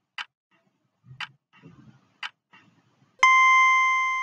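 Countdown-timer sound effect: three clock ticks, one a second, then about three seconds in a loud, steady electronic beep lasting about a second as the timer reaches zero.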